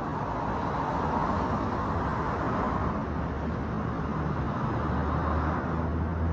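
Road traffic: a steady wash of noise with a motor vehicle's engine hum, which grows stronger from about halfway through.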